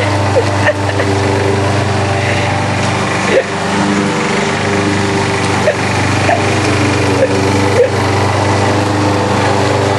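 Gasoline lawn mower engine running steadily as it cuts wet grass, with a brief dip about three and a half seconds in, over the hiss of heavy rain.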